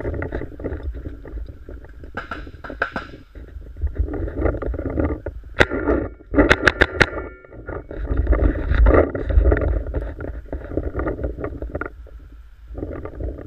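A quick run of about five sharp paintball marker shots midway through, over constant rustling movement noise and a low rumble of wind and handling on the microphone.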